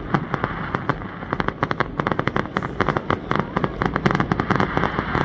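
Fireworks going off in a rapid, unbroken string of sharp bangs and crackling pops, many each second.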